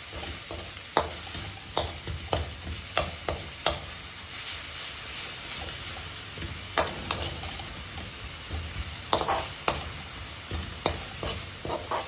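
Fresh coriander and mint leaves sizzling gently in oil in a metal kadai over a simmer flame. A metal spoon stirs them, clicking and scraping against the pan at irregular intervals.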